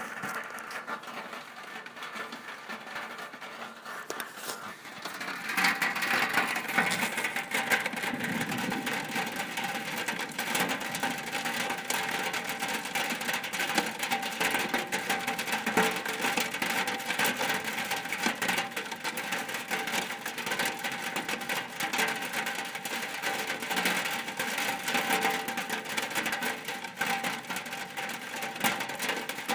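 Rain drumming on a shack roof: a dense patter of many drops, growing heavier about five seconds in and then holding steady.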